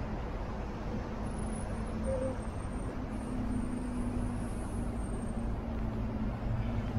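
City street traffic: a steady rumble of road noise with a motor vehicle's engine hum, and faint high whines in the middle.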